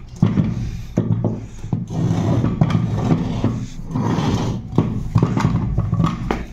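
A steady low machine hum with irregular knocks and clicks of a heavy starter motor being handled on a concrete floor.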